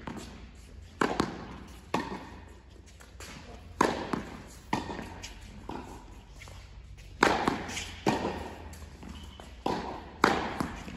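Tennis balls struck by racquets in a volley rally, a sharp pop every second or two, each ringing on in the large indoor hall.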